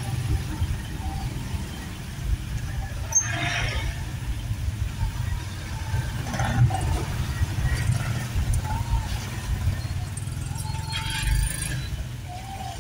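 Small motorcycle and scooter engines idling and pulling away, a steady low rumble with a few short, sharper bursts.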